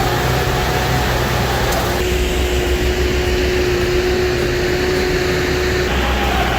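Heavy industrial shredder running: a loud, steady mechanical drone with a constant whine, its character shifting abruptly about two seconds in and again near the end.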